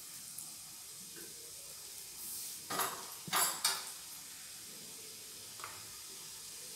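Metal kitchen utensils (a small bowl, ladle and pan) clattering three or four times in quick succession around the middle, over a faint steady hiss, with one small click near the end.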